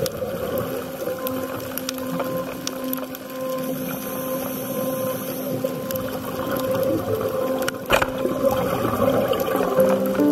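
Underwater sound picked up by a compact camera in its underwater housing: a steady low hum with faint scattered clicks, and a sharper crackle about eight seconds in.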